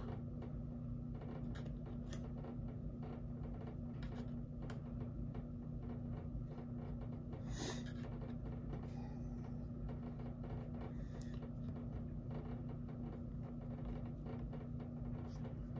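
Quiet room tone with a steady low hum, over which come faint scattered clicks and a short rustle about seven and a half seconds in: a plastic bottle of rubbing alcohol and a cotton swab being handled while the swab is wetted and dabbed on leather.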